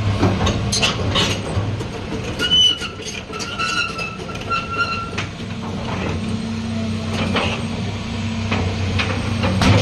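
Hitachi ZX240 excavator running, its diesel engine a steady drone under repeated clanks and knocks, with a high squeal for a couple of seconds around the middle.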